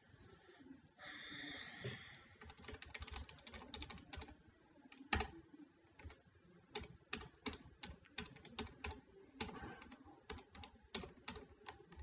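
Typing on a computer keyboard: irregular key clicks, with one louder keystroke about five seconds in.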